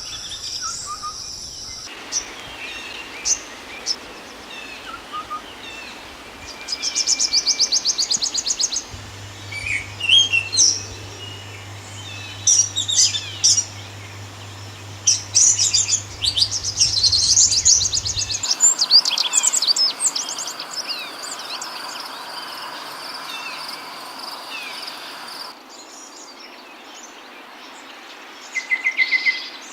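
Several songbirds singing and calling: short chirps, quick whistled sweeps and fast trills of rapidly repeated notes, over a steady hiss. The background changes abruptly a few times.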